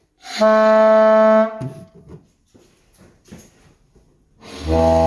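Two pipe organ pipes blown by mouth, each sounding one steady held note. The first lasts just over a second; after a pause of about three seconds a second, lower note begins near the end.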